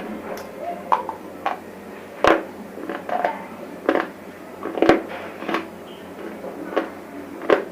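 Dry chips of broken bars being crunched, about ten sharp, brittle crunches at an uneven pace with smaller crackling between them.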